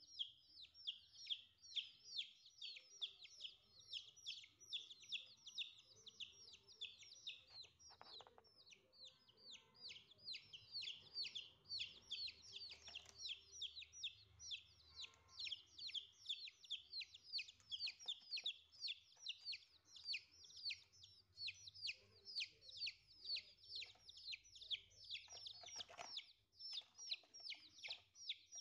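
Domestic chicks peeping steadily: a rapid, unbroken string of short, high-pitched peeps, each sliding downward in pitch, several a second.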